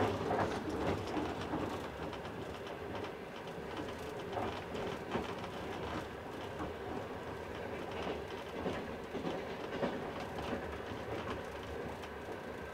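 Passenger train running along the track, a steady rolling rumble with the wheels clacking now and then over the rails.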